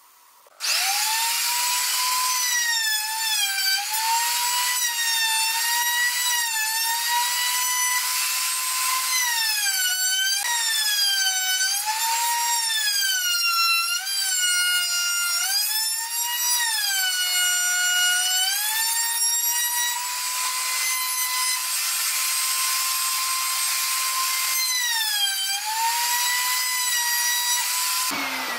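Handheld trim router cutting a profile along the edge of a pine board: a loud, high whine that sags in pitch each time the bit bites into the wood and recovers between passes. Near the end it is switched off and winds down.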